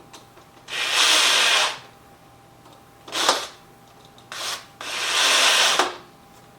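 Drill driving screws into door hardware, in four bursts: about a second near the start, two short pulses a little after three and four seconds in, and another second-long run about five seconds in.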